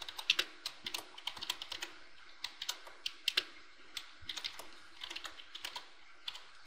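Typing on a computer keyboard: quick keystroke clicks in uneven runs, with brief pauses between them.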